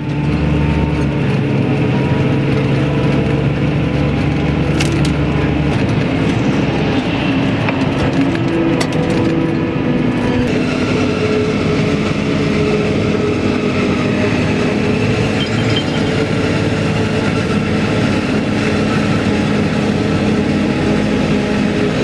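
Heavy diesel machinery running steadily under load: a Claas Jaguar 950 self-propelled forage harvester chopping maize, with a tractor and trailer running alongside. About six seconds in the low engine drone drops away and the mix of engine and chopping noise changes.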